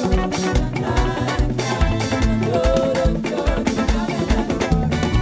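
Live praise band playing an upbeat groove with a steady kick-drum beat and bass, with singing over it.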